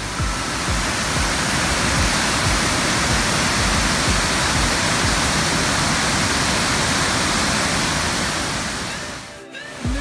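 Waterfall: a loud, steady rush of water pouring over a wide rock ledge. It drops away briefly near the end, then another stretch of falling water starts.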